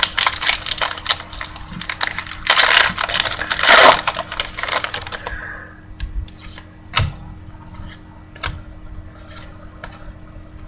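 Football trading cards and their foil pack wrapper being handled: dense crinkling and clicking, loudest in a noisy stretch of about a second and a half, then a few light separate taps as cards are set down.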